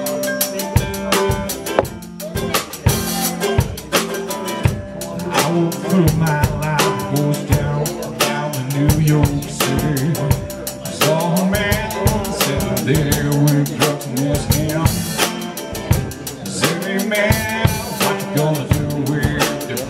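A live acoustic band plays: a Pearl drum kit keeps a steady beat on bass drum, snare and cymbals under a strummed acoustic guitar. A male voice sings along in the second half.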